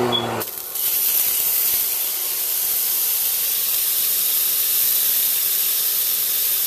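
A tilapia fillet sizzling in a hot frying pan, the sizzle starting abruptly about a second in as the fish goes in, then holding as a steady loud hiss of frying.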